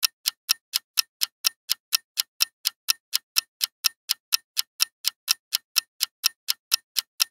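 Clock-ticking sound effect for a quiz countdown timer: sharp, even ticks at about four a second.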